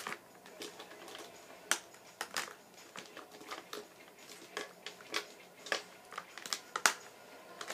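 Sharpie markers clicking against one another and against a clear plastic pencil box as they are set in and stacked, in irregular taps with light rustling between, the sharpest tap near the end.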